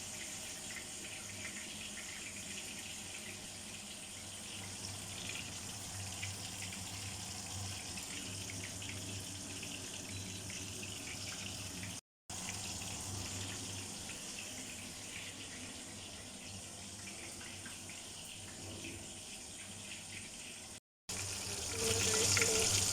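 Breaded chicken thighs deep-frying in oil: a steady sizzling hiss, cut off briefly twice where the footage is edited, and a little louder near the end.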